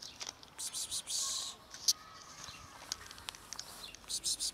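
Cats crunching dry cat food from a plastic tub: several short bursts of crunching with sharp clicks between them.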